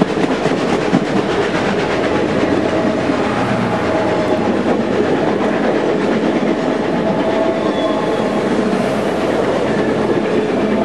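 Union Pacific passenger cars rolling past close by, steel wheels running on the rails in a steady, loud rumble.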